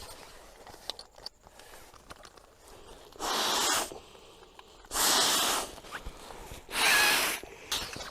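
Three strong breaths blown into the valve of a self-inflating sleeping pad, each a short rush of air about two seconds apart, the last with a faint whistle.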